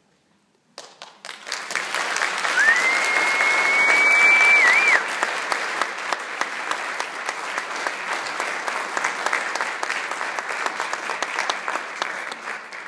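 Audience applauding, the clapping starting suddenly about a second in and fading out near the end. A single long whistle rises and then holds steady over the clapping for about two seconds.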